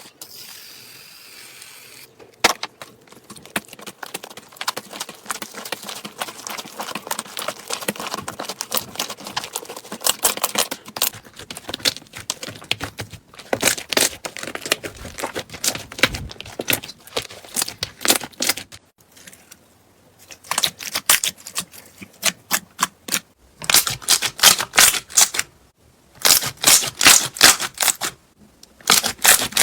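Crunchy slime being squeezed and pressed by hand, giving rapid crackling and clicking in bursts with short pauses.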